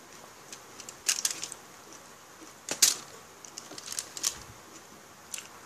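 Close-miked eating sounds from someone eating chicken inasal with rice and vegetables by hand: a few short clusters of sharp, crisp clicks and smacks, the loudest just under three seconds in.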